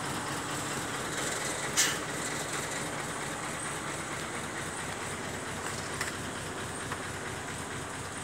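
Heavy construction machine's engine running steadily, with a single sharp knock about two seconds in and a couple of faint ticks later.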